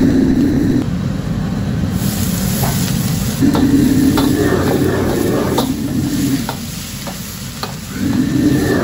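Metal ladle scraping and clacking against a carbon-steel wok while long beans, onion and egg are stir-fried, with steady sizzling over the rushing flame of a gas wok burner. The sizzle grows louder about two seconds in, as the beans go into the pan.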